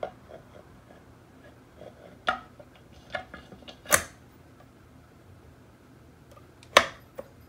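Scattered light clicks and knocks of a Honda TRX400EX's left crankcase (stator) cover being handled and lined up over the dowel pins against the engine case, the sharpest knock about four seconds in and another near the end.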